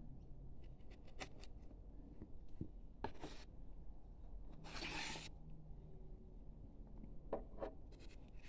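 Hand carving chisel cutting and scraping into a wooden board: light clicks and taps, with two longer scraping strokes about three and five seconds in.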